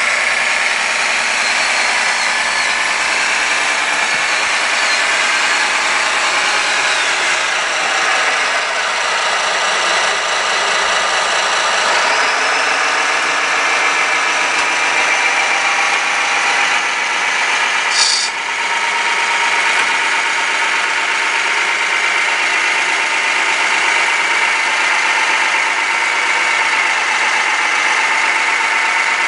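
Electronic diesel engine sound from a radio-controlled model's Servonaut sound module, running steadily through a small speaker, with some rises and falls in pitch. A single sharp click about 18 seconds in.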